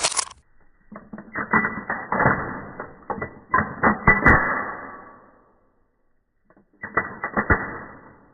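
Metallic clacks and clicks of a Beretta 92FS 9 mm pistol's slide being racked, extracting a case and chambering a round, played back slowed down so each strike is deep and drawn out with a long ringing tail. There are two runs of clattering strokes, with a pause of about a second and a half between them.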